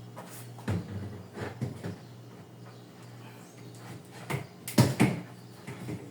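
Irregular knocks and clatter of containers, shelves or drawers being handled while a refrigerator is cleaned out, loudest in a quick pair of knocks near the end, over a steady low hum.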